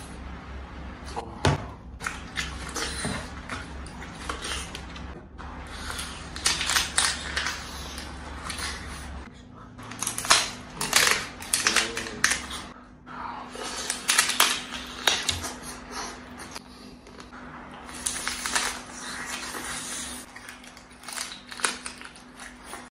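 Close-up eating sounds of crab: sucking and chewing meat from the legs in a thick sauce, with wet smacks and clicks coming in irregular clusters.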